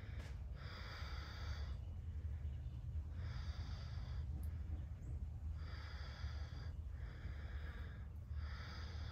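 A woman breathing audibly and steadily while doing a repeated overhead arm-stretching exercise. Each breath lasts about a second and comes about every two and a half seconds, over a steady low rumble.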